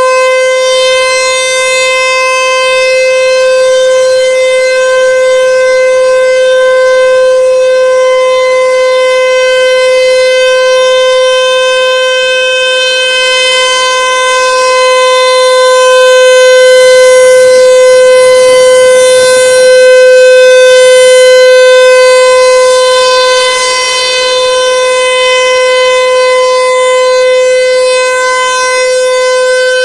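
American Signal Tempest 135 AC/DC electromechanical siren sounding a steady, very loud single tone at full speed during a test. The loudness swells and fades slowly as the rotating horn sweeps past.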